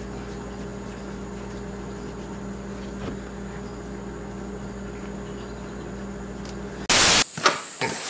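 Steady electrical hum with a hiss, with no distinct sound from the kitten. About seven seconds in, a sharp, loud burst of noise lasts a fraction of a second, and the hum stops after it.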